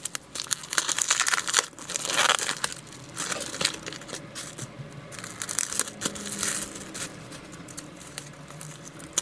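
Wrapping paper being torn and crumpled as a small package is unwrapped by hand: irregular crackling rustles, loudest in the first two and a half seconds, then softer.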